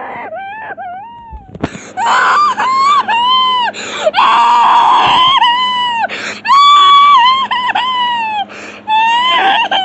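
A very high-pitched human voice screaming and wailing: quieter wavering whimpers at first, then from about two seconds in, loud long drawn-out screams broken by short breaths.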